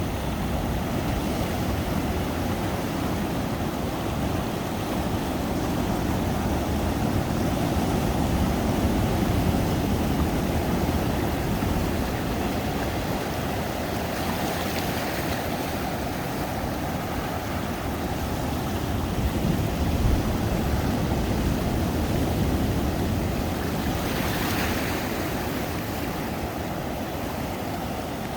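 Ocean surf rolling in on a beach: a continuous low rumble of breaking waves that swells and eases, with a brief hissing wash about halfway through and again near the end.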